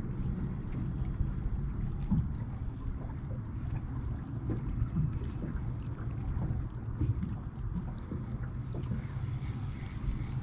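Wind rumbling on the microphone over small waves lapping and slapping against the hull of a small fishing boat.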